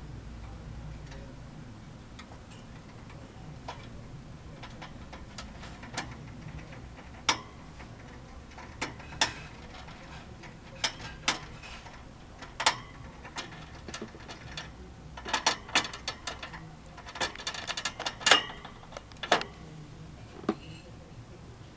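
Wire cage door clicking and rattling as a dwarf hamster climbs and pushes at it. The sharp metallic clicks come one at a time at first, then thicken into quick rattling clusters with the loudest about eighteen seconds in, as the door is forced open.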